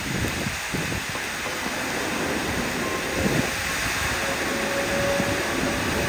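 Keikyu 600 series electric train starting to pull away under heavy rain. The steady hiss of the downpour runs throughout, and from about halfway a faint whine from the traction motors sets in and rises slightly as the train gathers speed.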